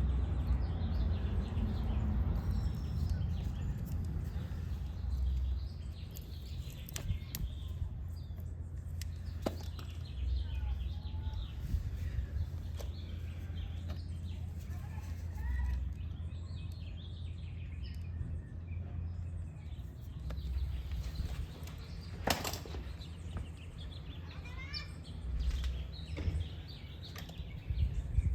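Outdoor ambience: a steady low rumble with scattered faint bird chirps, and one sharp click about 22 seconds in.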